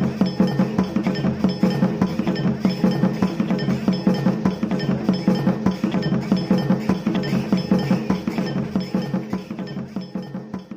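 Fast folk dance music: a rapid, dense clicking percussion beat over a steady low drone with a thin high ringing tone, tapering off near the end.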